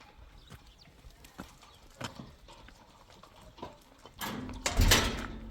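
Hooves of a horse or other hoofed farm animal clopping unevenly on hard ground. About four seconds in, a loud rush of noise lasts about a second.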